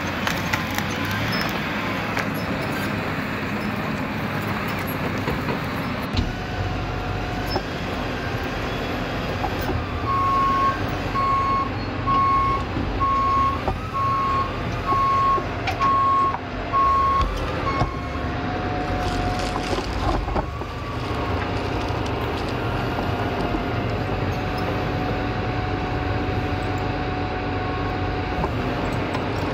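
KMC 2600 tracked skidder's diesel engine running steadily as the machine works. A backup alarm beeps about once a second for some eight seconds in the middle, and a steady whine follows.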